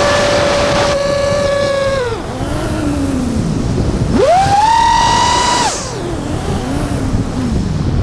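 FPV quadcopter's brushless motors and propellers whining as heard from the onboard camera, the pitch following the throttle: a steady whine drops about two seconds in, surges sharply higher around four seconds and holds, then falls away again near six seconds.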